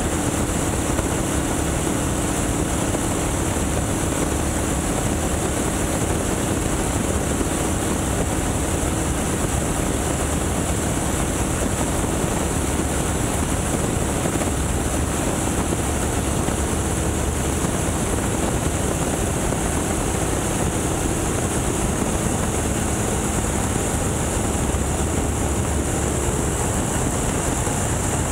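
Boeing Stearman biplane's radial engine and propeller running steadily in flight, mixed with a constant rush of wind through the open cockpit.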